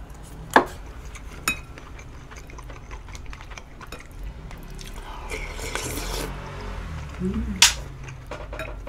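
A person eating close to the microphone: chewing, with sharp clicks of a metal utensil against a bowl, about half a second in, at a second and a half, and a louder one near the end. In the middle there is a stretch of noisier eating sound.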